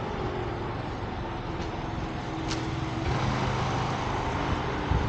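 Street traffic: a motor vehicle's engine running close by over steady street noise, growing a little louder about three seconds in.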